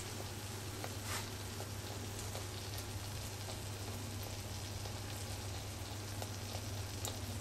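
Two yeast doughnuts deep-frying in hot oil at 180 °C in an electric deep fryer: a gentle, steady sizzle with scattered faint crackles, over a constant low hum.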